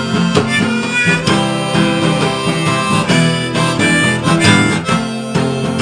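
Background music: an instrumental passage of a song between sung lines, with a steady beat.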